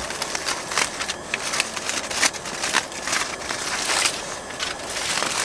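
Aluminium foil crinkling and crackling as a foil-wrapped food parcel is unwrapped by hand, in quick irregular rustles.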